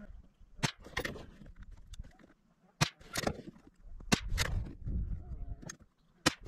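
Savage B22 Magnum bolt-action rifle firing .22 WMR rounds: several sharp shots about two seconds apart.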